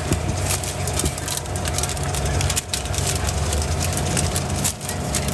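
A steady low motor hum with a thin steady whine above it, and frequent sharp crackles and clicks throughout.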